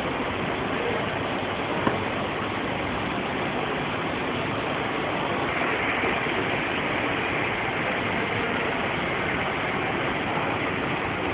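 Industrial laundry machinery in a mechanised linen washing plant running steadily, a dense even machine noise, with a brighter hiss coming in for a few seconds past the middle and a single click about two seconds in.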